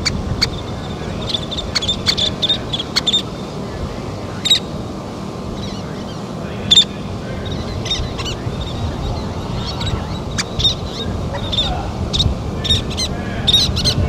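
Least terns calling: many short, sharp, high-pitched notes at irregular intervals, over a steady low background rush.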